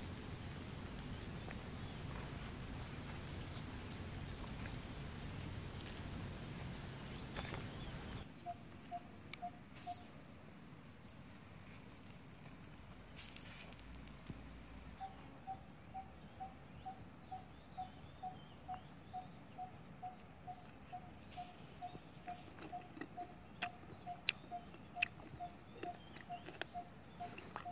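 Faint outdoor ambience of insects calling: a high chirp repeating a little over once a second, then after a cut about eight seconds in, a lower call repeating about twice a second. Scattered small clicks and taps run through it.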